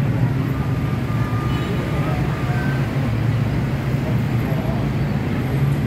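Steady drone of dense city traffic on a busy multi-lane road below: car and motorbike engines and tyres blending into a low, even rumble.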